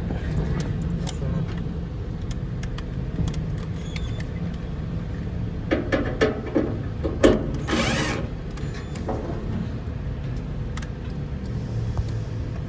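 Knocks, clicks and rattles of slot-machine cabinet parts and screws being handled during assembly, bunched around the middle, with a brief scraping rush about eight seconds in, over a steady low hum.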